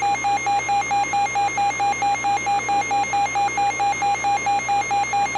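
Electronic alert tone beeping rapidly, about five short beeps a second at one steady pitch, over a faint hiss: an attention signal ahead of a broadcast weather warning.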